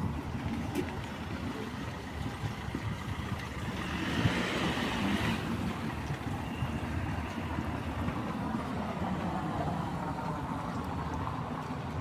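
Street traffic on rain-wet city streets: a steady rumble, with a vehicle passing about four to five seconds in as a swell of tyre hiss.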